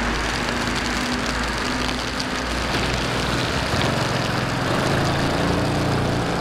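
City street traffic in the rain: a steady hiss of rain and wet roads under a low engine rumble, with a vehicle's hum growing louder in the second half.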